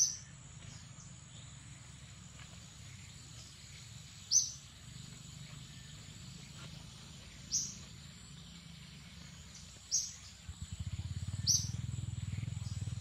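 A bird giving five short, high chirps about every two to three seconds, over a steady thin high insect whine. A low rumble comes up near the end.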